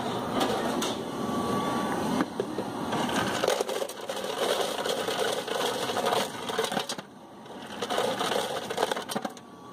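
Drink-fountain ice dispenser dropping ice into a large plastic cup: a steady clattering rattle that stops about seven seconds in, then starts again briefly.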